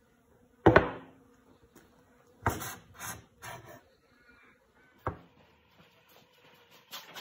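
Paint tins and bottles handled on a wooden workbench: a loud knock about a second in, a short run of clattering knocks around the middle, and another sharp knock past five seconds.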